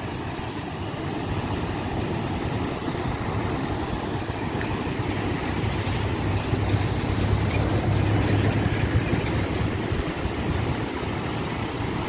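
Steady rush of water pouring over a wide river waterfall and rapids, mixed with wind rumbling on the microphone that grows stronger for a few seconds in the middle.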